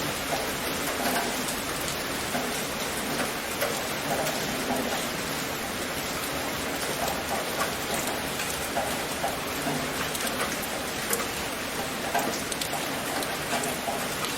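Steady rain falling, with many individual drops pattering and ticking on a surface.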